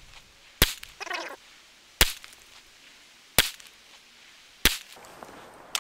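SIG Pro SP2340 pistol firing .40 S&W: four single shots, evenly spaced about a second and a half apart, each a sharp crack.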